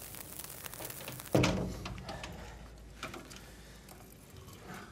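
A single loud bang about a second in, dying away slowly, then a fainter knock about two seconds later.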